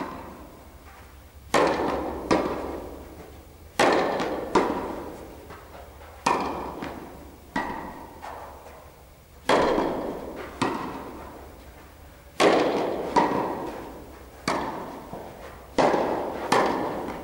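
Tennis ball being volleyed back and forth at the net: sharp racket strikes, mostly in pairs less than a second apart, every two to three seconds. Each hit rings out with the long echo of a large indoor tennis hall.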